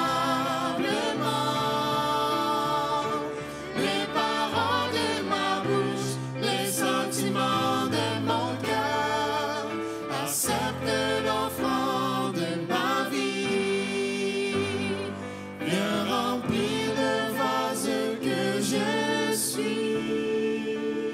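Several singers singing a worship song together over a keyboard, with held low notes changing every second or two beneath the voices.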